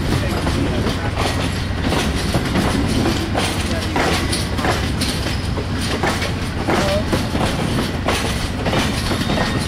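Amtrak passenger train of stainless-steel Amfleet coaches behind a GE Genesis diesel locomotive rolling past close by: a steady low rumble with the wheels clicking over rail joints about once or twice a second.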